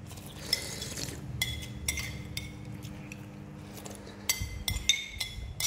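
Metal spoons clinking against ceramic bowls and plates while eating: about ten sharp, ringing clinks at irregular intervals, with a few bunched near the end.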